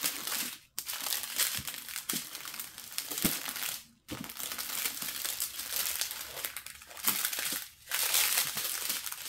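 Plastic packets of diamond-painting resin drills crinkling as they are handled, in long rustling stretches broken by three brief pauses.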